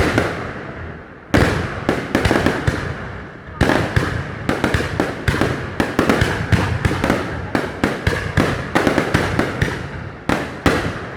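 Aerial fireworks display: a dense run of sharp bangs and crackling reports. The loudest bursts come about a second in and again near four seconds in.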